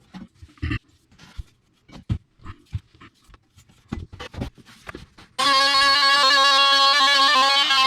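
A few seconds of scattered light knocks and taps, then, about five seconds in, background music with a plucked guitar starts abruptly and is much louder than the knocks.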